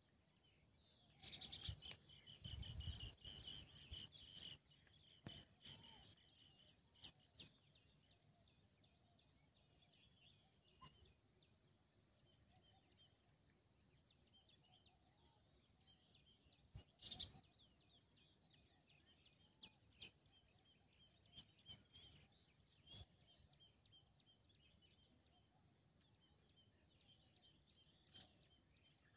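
Faint bird chirping, a steady high twitter that swells a little near the start and again about midway. A few soft knocks stand out, the loudest near the start and about midway.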